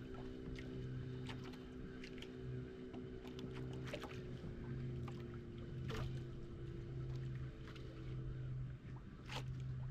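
A fishing boat's engine running steadily with a low, even hum. A few brief sharp clicks or knocks sound now and then.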